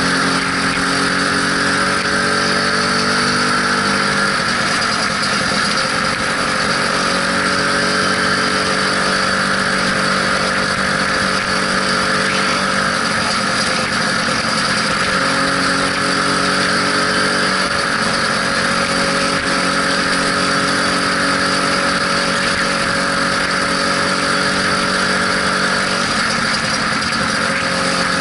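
Lambretta SX200 scooter's single-cylinder two-stroke engine running on the move, its note steady for stretches and shifting with the throttle a few times, over a constant rush of wind and road noise.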